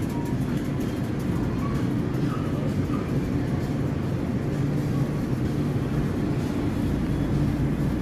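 Steady low rumble with a faint hum, unbroken throughout.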